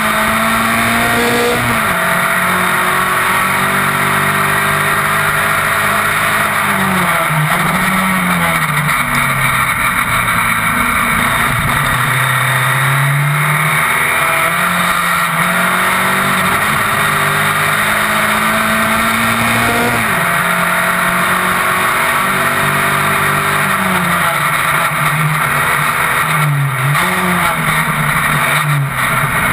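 Single-seater racing car's engine at racing speed, heard close from a camera on the car. The engine note repeatedly climbs and falls back with gear changes, with a few deeper drops as it slows for corners, over steady wind and tyre noise.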